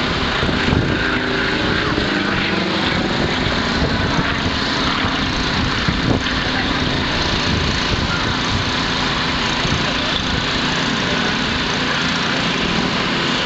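Sukhoi Su-26 aerobatic aircraft's nine-cylinder radial engine and propeller running steadily overhead during its aerobatic display.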